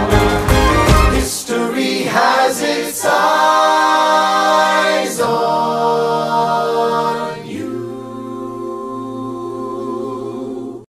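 Song music ending with a choir of voices singing long held chords; drums and bass drop out about a second in, the chord changes about every two seconds, and the music cuts off just before the end.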